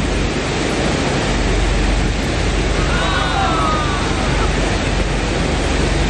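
Waterfall running with a loud, steady rush; the water is brown with rainy-season runoff. A faint falling call sounds briefly about three seconds in.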